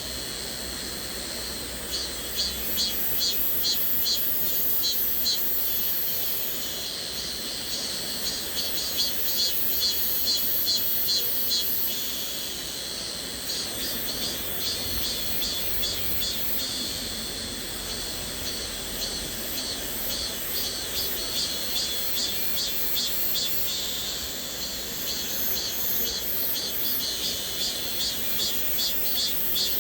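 Cicada chorus buzzing in rapid rhythmic pulses, about three a second, that swell and ease in spells of several seconds over a steady high-pitched hiss, with the even rush of a flowing stream underneath.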